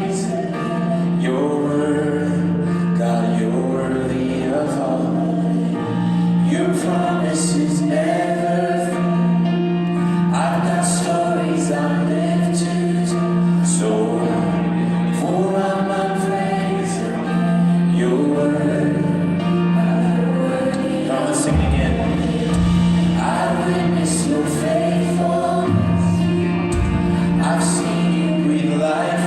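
Church worship choir and band singing a contemporary gospel worship song, the voices moving phrase by phrase over a steady low held note.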